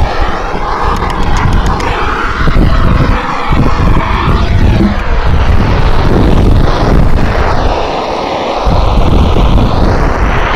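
Handheld cartridge gas blowtorch burning with a loud, steady roar as it is played over the wood of a top-bar beehive, with brief dips in loudness a couple of times.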